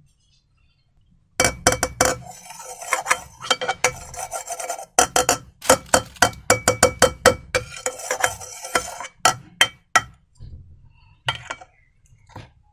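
A utensil clinking and scraping against a bowl in quick, irregular strokes as slime ingredients are stirred. It starts about a second and a half in, stops near ten seconds, and is followed by a couple of fainter clinks.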